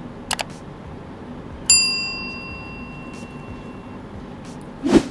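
Subscribe-button animation sound effects: a short mouse-click, then a bright notification-bell ding about a second and a half later that rings out and fades over about two seconds, and a short loud burst of noise near the end.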